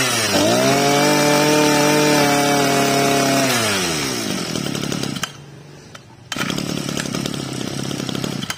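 Small two-stroke 26cc brush-cutter engine, a Maruyama 263 badged Kubota, revved by hand at the carburettor. The revs dip briefly, climb and hold high for about three seconds, then fall back to idle. Near the end it keeps running at a lower, steady speed.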